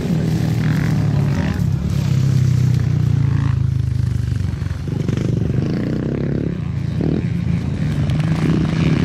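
Small racing engine running steadily at high revs, its note shifting a little before halfway through.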